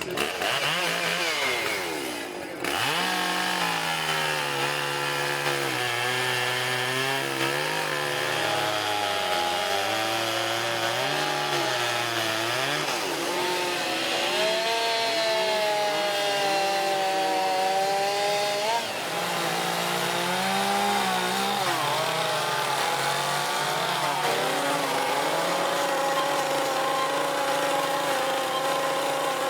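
Two-stroke chainsaws running and cutting into wood, their engine pitch rising and falling as the throttle is worked and the chain bites. The sound drops out briefly about two and a half seconds in.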